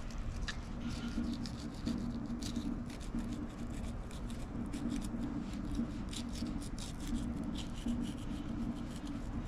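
Fillet knife slicing through a pompano's skin and flesh along the top of the spine: a run of soft, scratchy cuts and scrapes. Under it, a steady low hum.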